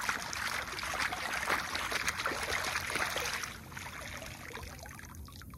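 Bare feet kicking and splashing in calm water off the side of a small rowing skiff, a busy run of small splashes that fades out about three and a half seconds in.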